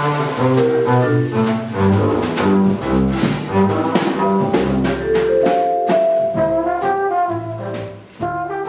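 Small jazz band playing: vibraphone struck with mallets, double bass and drums, with a trombone playing in the second half.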